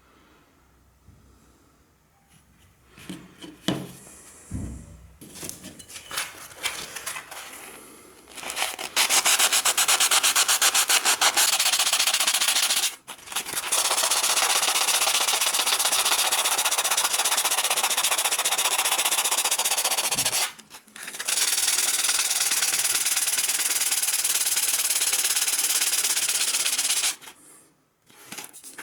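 Scattered handling clicks, then a continuous abrasive sanding of the carpet knife, a steady rasping that breaks off briefly twice and stops near the end.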